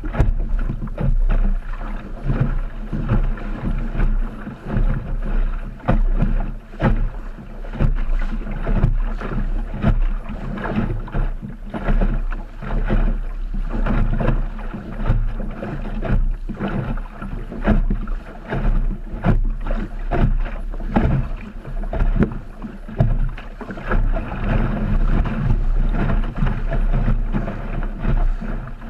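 An Optimist dinghy's hull under sail, with water slapping and splashing against it and frequent short knocks through a low, muffled rumble of water and wind.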